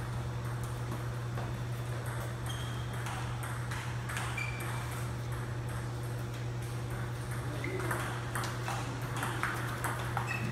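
Table tennis balls clicking irregularly off paddles and tables, over a steady low hum. A few short high squeaks come through.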